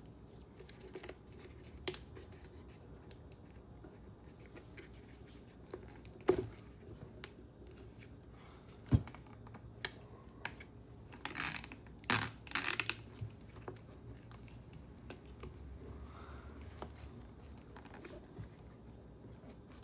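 Hands working on an RC car's wiring and plastic chassis: scattered light clicks and taps, a sharper knock about nine seconds in, and a few short rasping bursts between about eleven and thirteen seconds in.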